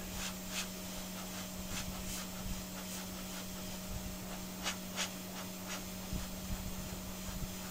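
Faint handling noise on a workbench: scattered light clicks and rubbing as a motherboard is moved about. Underneath is a steady low hum and hiss.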